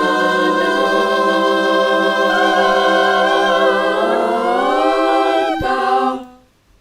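Several voices singing a cappella in harmony, holding a long final chord; the lower voices slide up in pitch partway through, and the chord fades out quickly about six seconds in.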